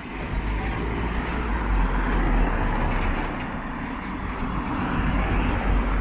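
A road vehicle driving past close by: a low rumble with road noise that swells about two seconds in and again near the end.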